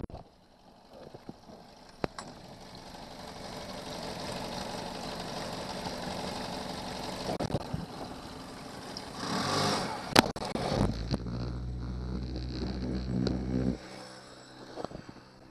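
Outboard motor running on a moving boat, with a steady rush of water and wind that builds through the first several seconds. A low, even engine hum comes in about eleven seconds in and cuts off abruptly about three seconds later.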